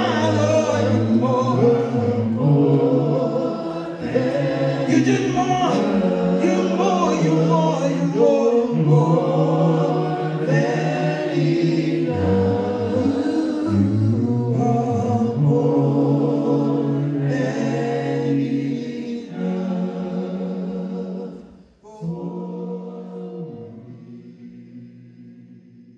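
Men's vocal group singing a slow gospel song a cappella, in harmony, with long held chords. About 22 s in, the singing breaks off, then one last chord fades away.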